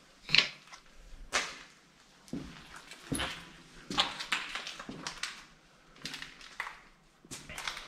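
Footsteps scuffing and crunching over a debris-strewn floor, about one step a second, each a short noisy scrape.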